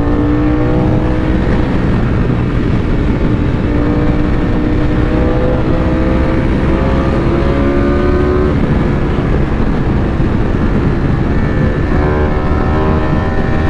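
Ducati Panigale V4's V4 engine under way, its pitch climbing slowly as it pulls for about eight seconds, then dropping, as at a gear change, and climbing quickly again near the end, over a steady rush of riding noise.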